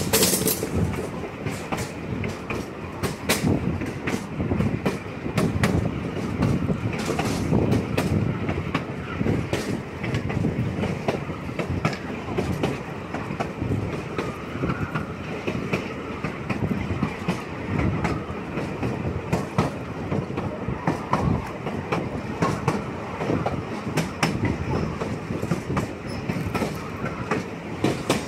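Railroad car wheels rolling along the track: a steady rumble with frequent, irregular clicks and clacks over the rail joints, heard from aboard an open gondola car.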